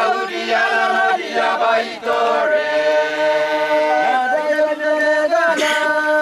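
A group of Trobriand Islander villagers chanting a traditional dance song in unison, several voices holding long notes together with brief breaks between phrases.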